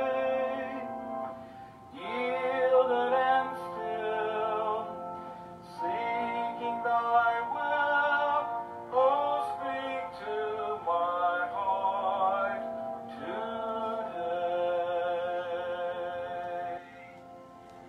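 A hymn played on a two-manual electronic church organ, played back through laptop speakers: sustained chords in several phrases with short breaks between them, the music stopping near the end.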